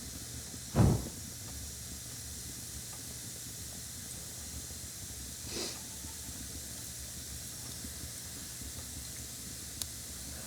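A short, strong puff of breath across the microphone about a second in, then a softer exhale around the middle, over a steady hiss. A single faint click near the end.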